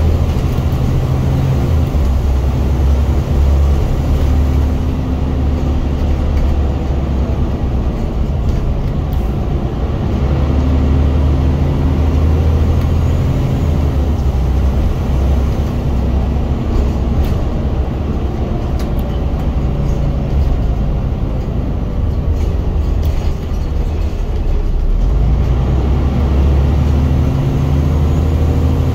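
Scania bus diesel engine heard loudly from the rear saloon, working hard as the bus drives: a deep, strong engine note that builds, eases and builds again several times as it accelerates, with the pitch gliding up and down.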